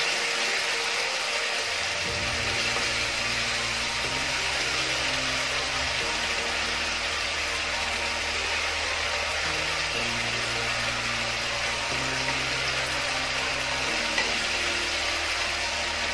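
Thick chilli-tomato sauce sizzling in a non-stick wok as it is stirred with a wooden spatula, a steady hiss. Under it run low held tones that change about every two seconds, like a slow background music bed.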